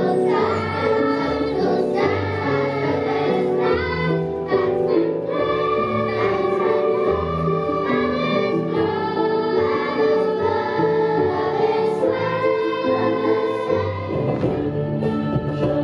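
A children's choir singing a song together, with held, sung notes throughout.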